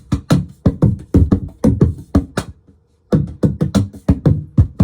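Meinl laptop cajon played by hand and amplified through a small bass amp, with a bass multi-effects pedal's octave divider switched on. Quick patterns of deep kick-like and sharper snare-like strikes, with a short break about two and a half seconds in.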